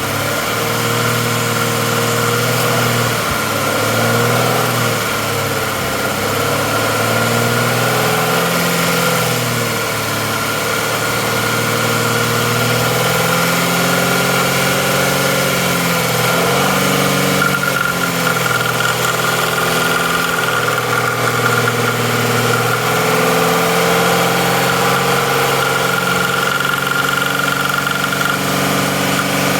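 2013 Mazda CX-9's 3.7-litre V6 idling with a steady whine, its idle pitch rising and falling slightly, recorded for a popping or clicking noise from the intake manifold.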